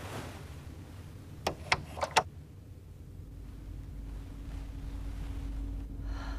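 Four sharp clicks in quick succession, then a steady low hum over a deep rumble that slowly grows louder.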